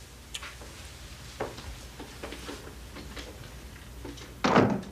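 A few light knocks and handling clicks, then one loud thud of a door shutting about four and a half seconds in.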